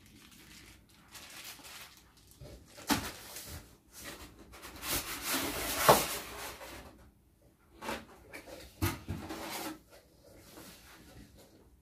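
A cardboard TV box and its packing inserts being handled: scattered knocks and scrapes, with a longer rustling scrape about halfway through that ends in a sharp knock.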